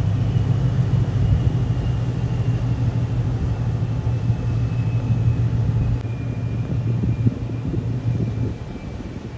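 Superyacht's engines running as it pulls away from the berth: a steady low drone with a faint high whine that slowly falls in pitch. The drone drops in level about six seconds in and again near the end.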